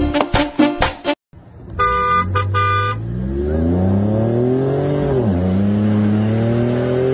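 Latin music cuts off about a second in; then a car horn honks a few short times, and a vehicle engine revs up under load, its pitch rising, dipping briefly and holding high, as a stuck pickup is pulled out with a tow strap.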